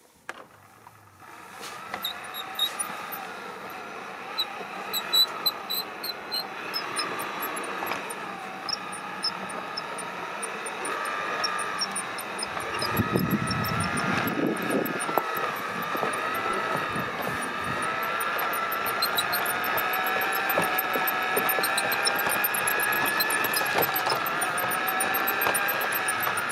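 LGB garden railway locomotive running: a steady electric motor and gear whine that wavers in pitch and grows louder as the train approaches, with high squeaks from the wheels on the track. There is a brief low rumble about halfway through.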